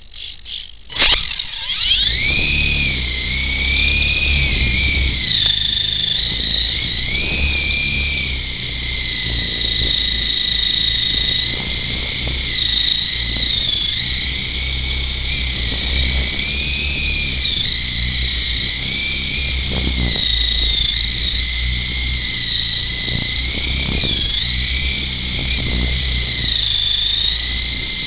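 Colco AH-64 Apache model helicopter's motor and rotors spooling up about a second in, then running in flight with a high whine that wavers in pitch as the throttle changes. A low rumble of air buffets the onboard camera's microphone.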